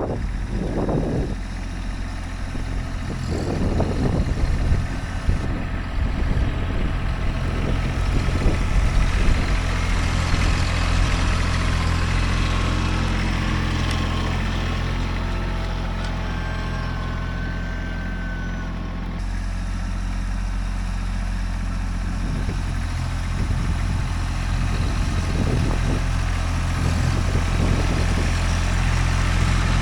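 Kubota B-series compact tractor's diesel engine running steadily under load while pulling a single-bottom plow through dry, hard soil.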